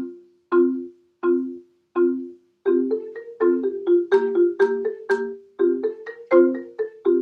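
Solo marimba struck with mallets: single ringing notes at a slow, even pace, then from about a third of the way in a quicker, flowing line of notes.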